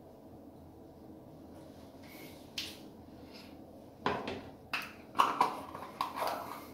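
Faint room hum with a single light click, then from about two-thirds of the way in a run of several short knocks and rustles from hands handling small objects close to the microphone.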